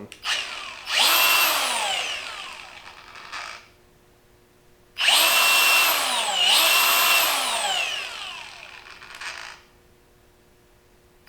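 Milwaukee M18 Fuel cordless angle grinder running with no load in short squeezes of its paddle switch: a quick blip, a run that whines down in pitch as it coasts to a stop, then two pulls back to back about five seconds in, again winding down with a falling whine. It comes straight up to one full speed each time; the paddle gives no speed control.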